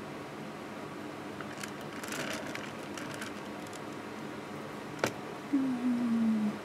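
Light rustling and small clicks as the painting board is shifted on the mat, over a faint steady hum. There is one sharp click about five seconds in, then a short low tone sliding downward near the end.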